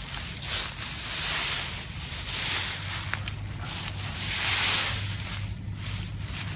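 Footsteps crunching and shuffling through a deep layer of dry fallen leaves, in uneven swells.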